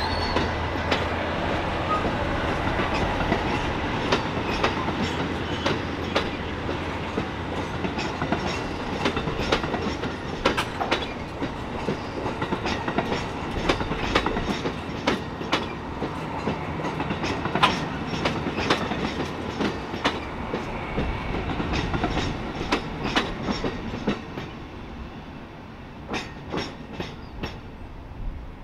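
Amtrak California Zephyr passenger train rolling out of the station, a steady rumble with wheels clacking irregularly over rail joints. It fades slowly as the train moves away, the clacks thinning out near the end.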